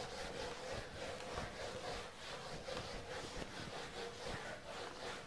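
Handheld whiteboard eraser rubbing back and forth across a whiteboard: faint, repeated wiping strokes.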